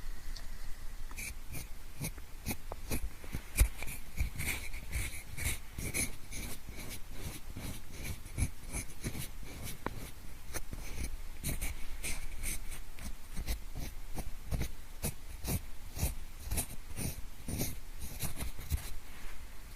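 Pencil scratching and rubbing in many short, irregular strokes, several a second, mimicking the scraping of ear cleaning. There is one louder bump about three and a half seconds in.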